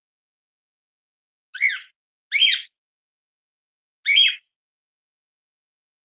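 Cockatiel chirping three times, each a short call that bends in pitch; the first two come close together and the third follows about two seconds later.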